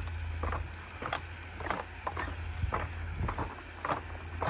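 Footsteps on a wooden slat boardwalk, a hollow knock about twice a second as someone walks at a steady pace.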